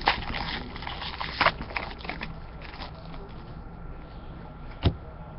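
Trading cards being handled between pulls: cardstock rustling and sliding, with a few sharp taps, the loudest near the end.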